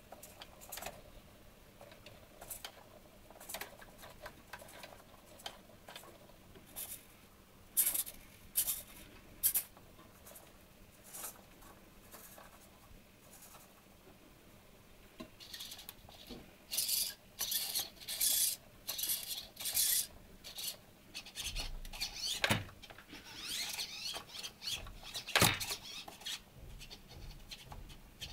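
Servo motors of an animatronic robot head whirring and buzzing in short bursts as the eyes, jaw and head move, with scattered clicks. The bursts come thick and fast in the second half, some with a whine that slides up and down in pitch.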